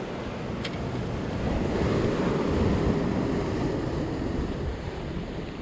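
Ocean surf washing against jetty rocks, with wind on the microphone; the rush of water swells for a couple of seconds in the middle. A faint click comes about half a second in.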